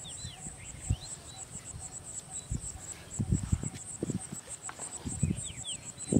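Crickets chirping in a high, rapid, even pulse, with a few short falling bird chirps now and then. Low, irregular thuds and rustling sound beneath them.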